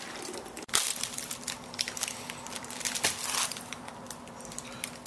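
Crinkly plastic snack packet being handled and opened: a run of irregular sharp crackles that starts just under a second in.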